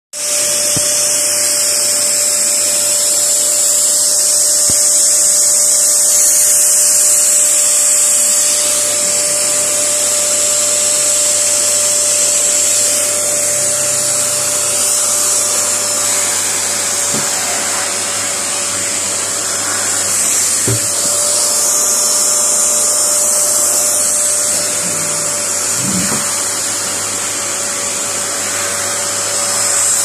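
Vacuum cleaner running steadily with a high airy whine and a constant hum, its hose nozzle sucking at a cat's fur.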